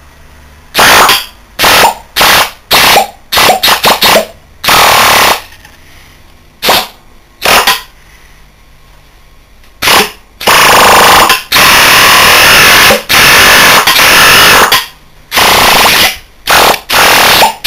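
A small Bristol scroll compressor with its discharge valve plate removed, run as an air motor on compressed air from a blow gun, spinning up very fast in repeated loud hissing bursts. The bursts are short and quick in the first half, and longer, lasting a second or more, in the second half.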